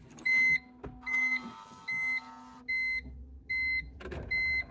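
Car dashboard warning chime beeping with the ignition on: six short, high, even beeps a little under a second apart. A low hum runs under the first two seconds.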